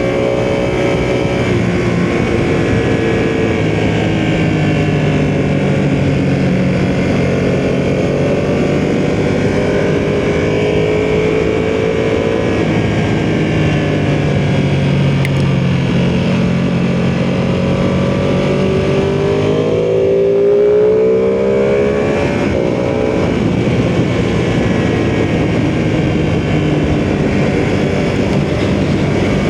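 Ducati sportbike engine under way at speed, its note rising and falling with the throttle, with wind rushing over the microphone. The revs climb sharply about two-thirds of the way through.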